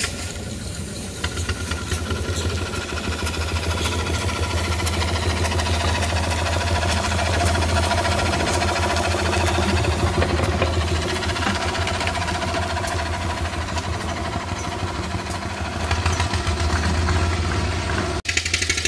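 Miniature live-steam traction engine running under way, its exhaust beating in a fast, steady chuff with steam hissing.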